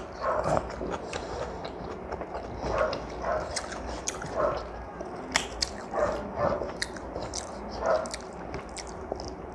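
Close-up eating with the hand: chewing a mouthful of rice and dal with wet mouth sounds and scattered smacks, and fingers mixing rice on the plate.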